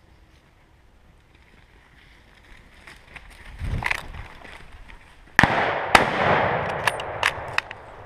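Two hunting rifle shots about half a second apart, each a sharp crack followed by a long echo rolling through the woods. Before them comes a brief rustle of brush, and a few light clicks follow the shots.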